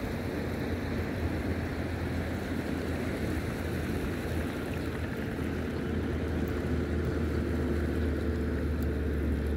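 Steady low rumble of wind and sea at the shoreline, with a faint steady hum running underneath.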